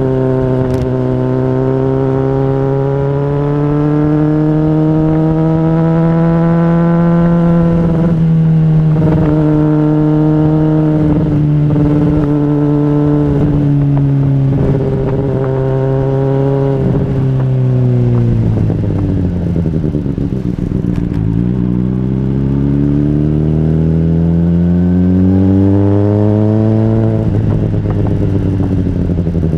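Honda CBR600RR inline-four sport bike engine under way, running at fairly steady revs with short breaks in the note at gear changes. About two-thirds through, the pitch falls as the bike slows. It then climbs as the bike accelerates, up to another shift near the end.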